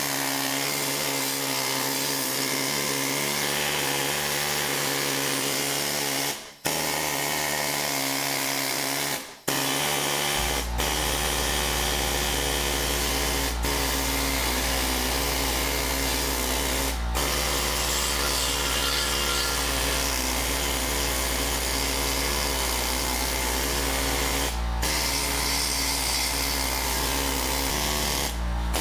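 A handheld power drill running steadily, stopping briefly twice, about six and nine seconds in. From about ten seconds in a steady low hum runs underneath it.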